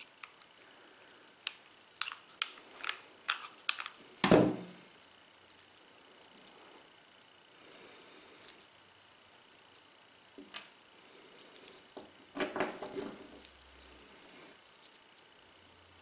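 Small metallic clicks, taps and light rattles of stainless-steel multitool bracelet links and tiny screws being handled. A louder knock comes about four seconds in, and a short burst of rattling about twelve seconds in.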